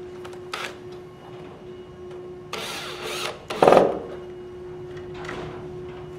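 Cordless drill with a Phillips bit driving a screw into a machine's bottom panel in one short burst a little past halfway, with shorter clatters and rustles of handling around it.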